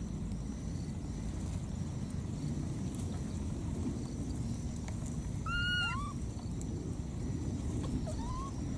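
Steady low outdoor rumble with a faint steady high tone above it, broken by a few short pitched animal calls that rise and fall. The clearest call comes about halfway through, with a quick rising note right after it, and another short rising call comes near the end.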